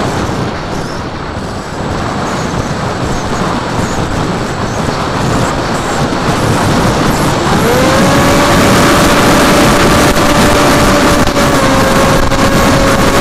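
Onboard sound of a TBS Caipirinha FPV flying wing. At first there is a rush of wind over the airframe with the motor throttled back. About seven and a half seconds in, the electric motor and propeller spool up to a steady whine.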